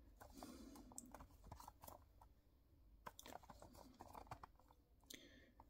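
Near silence with faint clicks and rustles from fingers handling a small cardboard box in its clear plastic wrap.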